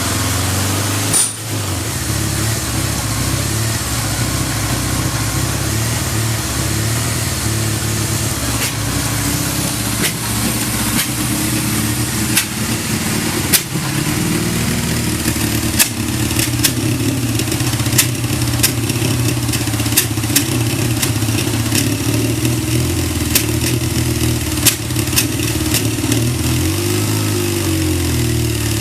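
1979 Kawasaki Z650 LTD's air-cooled inline-four engine running steadily, which the seller describes as free of abnormal noise. Sharp clicks come now and then from about eight seconds in, and the engine speed briefly rises and falls near the end.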